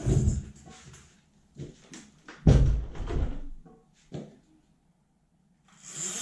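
Dull knocks and thumps of things being handled and set down on a tabletop, the loudest about two and a half seconds in, with a few lighter knocks after it.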